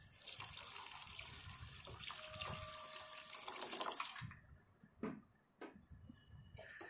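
Water poured in a stream into a stainless steel pot of radish curry for about four seconds, then stopping, as water is added to the kuzhambu before it is brought to the boil. A couple of soft knocks follow.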